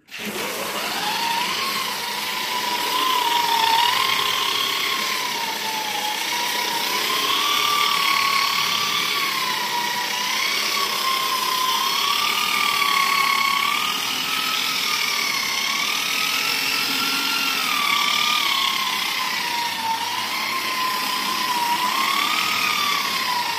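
Electric wall sander with a dust-extraction hose, switched on and spinning up at the start, then running with a whine that wavers slowly up and down in pitch over a steady rush of air.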